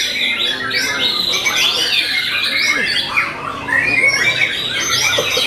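Several caged white-rumped shamas (murai batu) singing at once, a dense, unbroken run of quick notes sweeping up and down.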